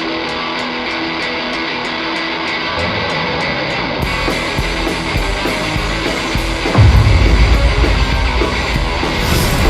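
Rock backing music with electric guitar over a steady ticking beat; the full band comes in about four seconds in, and heavy drums and bass join about seven seconds in.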